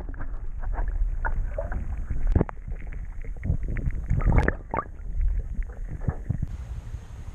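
Muffled sound of water heard through a submerged action camera: a dull low rumble with scattered knocks and clicks, its high end opening up near the end as the camera comes out of the water.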